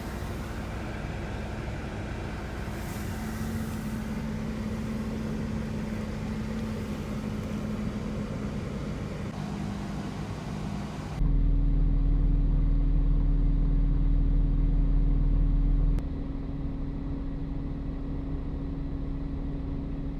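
A car running: a steady engine hum under a noisy hiss. About eleven seconds in the sound changes abruptly to a louder, deeper rumble without the hiss, which eases a few seconds later.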